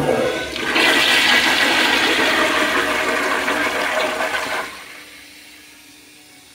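A 1980s American Standard Instanto toilet flushed by its exposed flushometer valve. A sudden gush comes as the valve opens, then about four seconds of loud, steady rushing water, which drops away to a quiet trickle as the valve shuts near the end.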